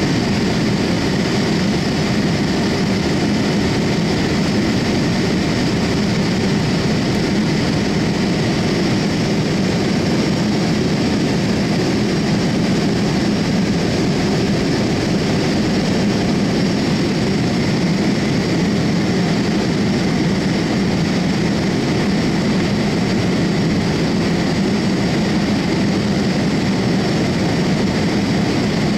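In-flight cabin noise of a Boeing 787-8 heard beside the wing, from its Rolls-Royce Trent 1000 engines and the airflow over the fuselage. It is a steady low noise with a fainter even hiss above it, unchanging in level.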